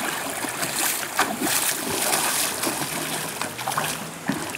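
Water splashing and sloshing irregularly as people kick and swim through a stream.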